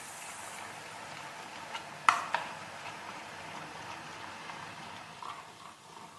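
Boondi batter dripping through a perforated steel ladle into hot oil, the oil sizzling and bubbling steadily as the gram-flour drops fry. About two seconds in, a sharp metal clink of steel ladle on ladle rings briefly, with a lighter second clink just after.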